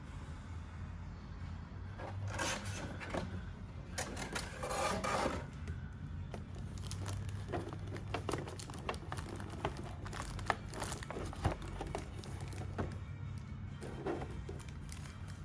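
Packaging being handled and unwrapped during an unboxing: rustling, rubbing and scattered clicks, with two louder rustles about two and five seconds in, over faint background music.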